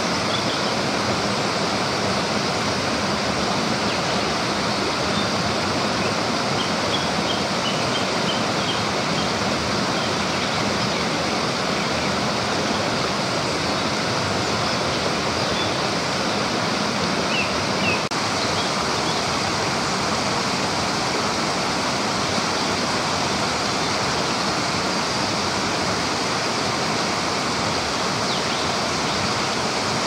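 Steady rushing of flowing stream water, with a few faint high chirps here and there.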